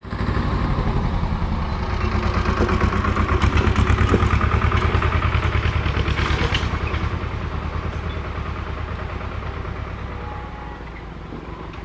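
Diesel locomotive engine running with a fast, throbbing rumble as the train approaches; it is loudest a few seconds in and then fades steadily.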